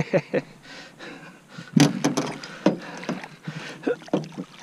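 Irregular knocks and thumps, the loudest a little under two seconds in, as a landing net holding a Murray cod is worked against the side of a boat.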